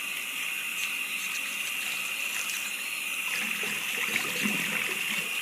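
Tap water running steadily into a sink over hair being rinsed, with a steady high whine running under it.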